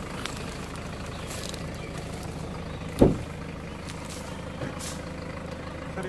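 Steady hum of an idling motor vehicle engine, with a single loud thump about halfway through.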